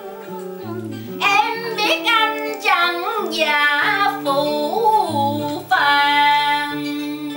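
Home karaoke: a woman singing into a microphone over a backing music track. Her voice comes in about a second in with short, bending phrases, then holds one long note near the end.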